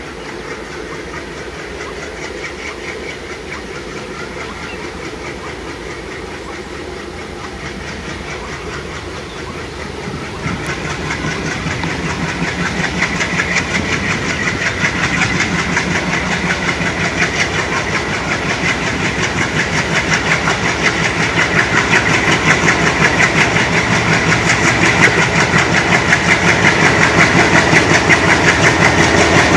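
ALCo diesel locomotive engine running, growing steadily louder from about a third of the way in.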